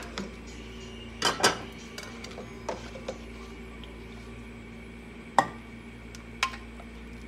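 Metal knocks and scrapes of a steel spoon against an aluminium pressure cooker and a steel bowl as curry is spooned out, a handful of separate clanks over a steady low hum. The loudest clanks come about a second and a half in and again about five and a half seconds in.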